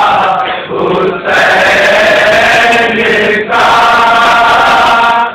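Group of men chanting a nauha, a Shia mourning elegy, loudly in sung phrases with short breaths between them, about a second in and again about three and a half seconds in.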